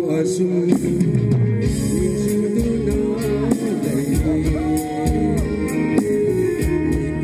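Live band music with drum kit and guitar, and a man singing into a microphone.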